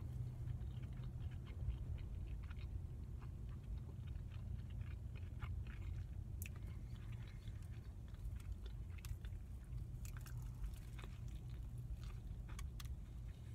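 A person chewing and biting a barbecue-sauce-drenched rib sandwich close to the microphone, with many short wet clicks and smacks, and a fresh bite near the end. A steady low hum runs underneath.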